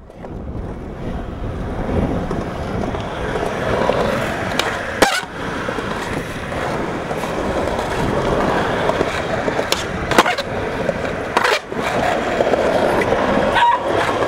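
Skateboard on Bones Street Tech Formula urethane wheels rolling over concrete with a steady rumble, broken by a few sharp clacks of the board, the loudest about five and ten seconds in.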